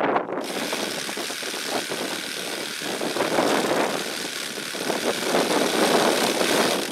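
Handheld power saw cutting a notch into a sheet of OSB board, its motor starting a moment in and then running steadily through the cut.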